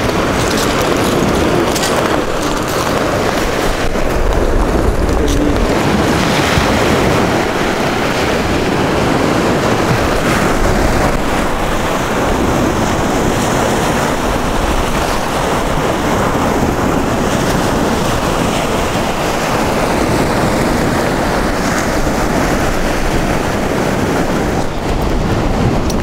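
Sea waves breaking and washing up a shelly beach in a steady wash, with wind buffeting the microphone.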